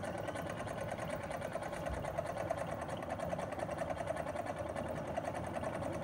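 AC servo motor and the DC motor coupled to it as a load, running with a steady whirring hum.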